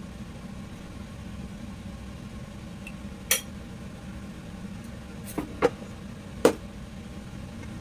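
Stainless steel mixing bowl clinking as it is handled with a spoon and hand: one sharp metallic clink about three seconds in, then three more close together a couple of seconds later, each with a short ring. A steady low hum runs underneath.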